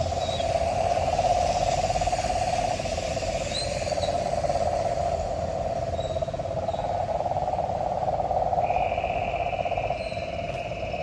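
Night chorus from a bog: many frogs and insects calling together in a dense, continuous pulsing trill, with a higher steady buzz joining loudly about three-quarters of the way in and a few short high chirps.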